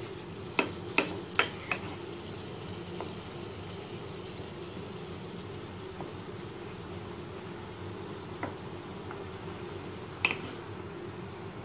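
Chicken and tomato masala simmering and sizzling in a nonstick frying pan with a little water added, so the tomatoes soften. A wooden spoon stirs it, knocking against the pan four times in the first two seconds and once more near the end.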